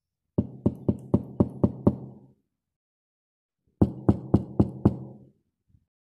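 Two runs of rapid knocking, about four knocks a second: seven knocks, then a pause of about two seconds, then five more, with a couple of faint taps near the end.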